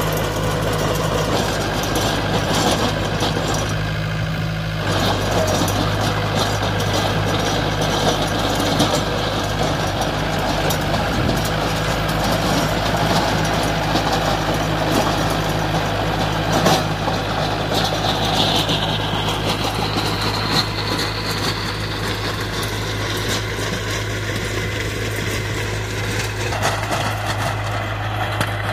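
Force Balwan 500 tractor's four-cylinder direct-injection diesel engine running steadily under load while it drives a rotavator, the rotary blades churning dry cloddy soil with a noisy rumble and scattered clicks.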